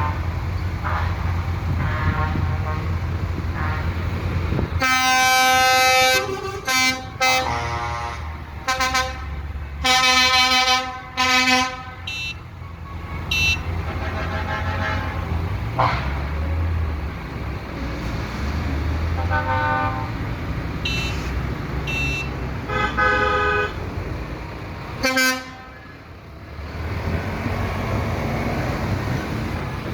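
Convoy of trucks and cars passing with a steady engine rumble, and many horn blasts honked over it. The longest, loudest blasts come about five to twelve seconds in, with shorter toots spread through the rest.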